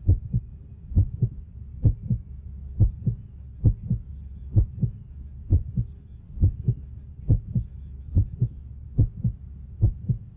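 Heartbeat sound effect: slow, steady double thumps, a bit under one beat a second.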